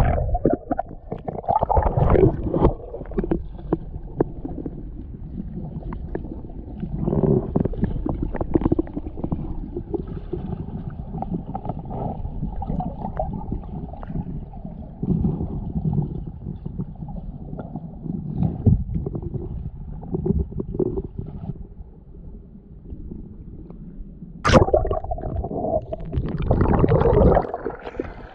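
Muffled underwater water noise, heard through a submerged camera: low rumbling and gurgling with irregular knocks. About 24 seconds in the camera comes up to the surface, and brighter, louder splashing of choppy water is heard.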